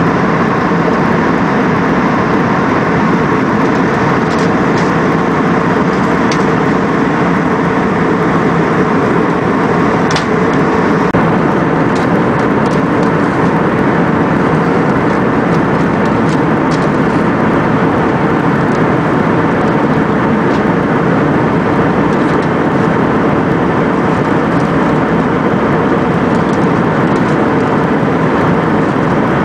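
Steady rushing cabin noise inside a jet airliner in cruise, from the engines and the airflow over the fuselage, heard from a window seat, with a few faint ticks.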